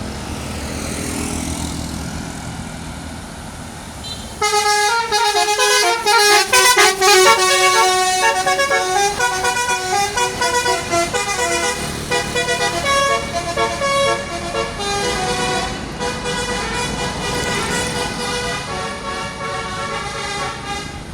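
Telolet horn on a Basuri bus: a multi-note musical air horn that comes in suddenly about four seconds in and plays a tune of quickly changing notes. Before the horn there is only the steady noise of the vehicle's engine.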